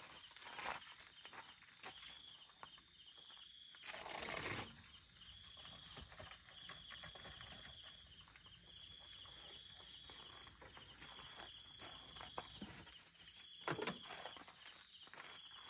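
Insects chirping in steady, repeating high-pitched trills. A short burst of noise about four seconds in and another near the end, both louder than the insects.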